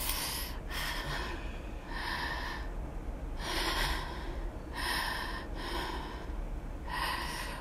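A person breathing heavily and snorting through the nose in about seven short, noisy breaths, spaced roughly a second apart. The nose is sore and bleeding after a nasal swab test.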